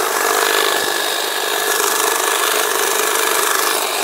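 Stihl hedge trimmer running steadily, its blades cutting through tall grass with a constant buzzing, rasping sound.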